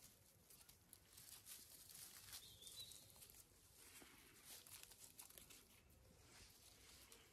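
Faint rustling and crackling of dry grass stems and leaves as puppies scramble and tug over them, with light scuffling of paws.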